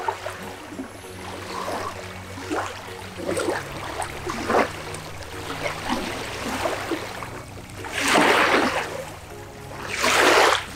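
Small river waves lapping and washing onto a sandy bank, with two louder washes near the end, under quiet background music.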